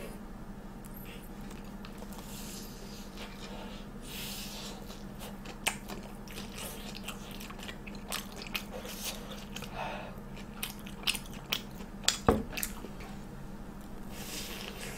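Biting into and chewing a sweet-potato-cube-coated mozzarella corn dog, with crisp crunching clicks scattered through the middle and the loudest crunch about twelve seconds in.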